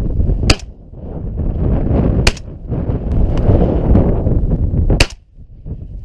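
Three 12-gauge shotgun shots, the first two close together and the third about three seconds later, over a steady rumble of wind on the microphone.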